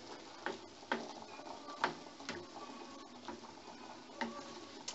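Wooden spoon stirring peas and green beans through a tomato-onion sauce in a frying pan: soft scraping with about half a dozen light, irregular taps of the spoon against the pan.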